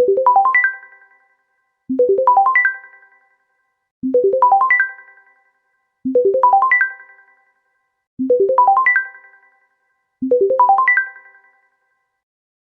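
LG T300 Cookie Lite ringtone: a short run of notes climbing quickly in pitch, then fading. The phrase repeats six times, about every two seconds.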